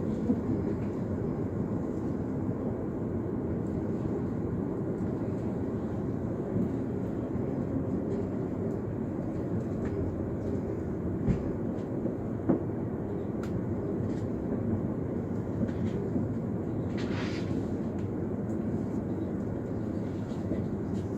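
Steady rumble of a passenger train heard from inside the carriage while running, with a few sharp knocks from the wheels and track and a brief hiss of air partway through.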